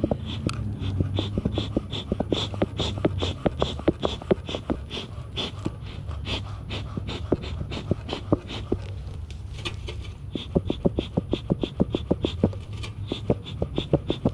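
Bee smoker bellows being pumped in a steady rhythm, about three puffs of air a second, to get the smoker going again. The low, steady hum of the bees runs underneath.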